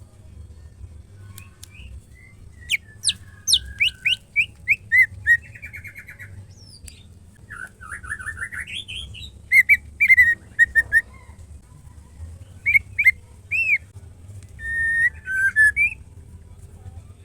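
Female white-rumped shama singing, calling to males: bursts of whistled phrases with steep downward sweeps, trills and quick runs of repeated notes, separated by short pauses, over a low steady hum.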